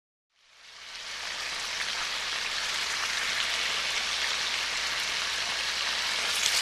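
A steady, rain-like hiss fades in after about half a second of silence and holds evenly.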